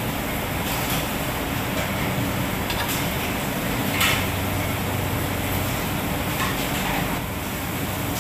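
Steady droning background noise of kitchen machinery with a low hum, broken by a few faint clicks and one short knock about four seconds in.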